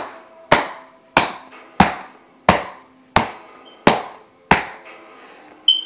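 Leather baseball glove, freshly soaked with hot water, being pounded in the pocket to break it in: eight sharp smacks at about one and a half a second, with a short pause before the last.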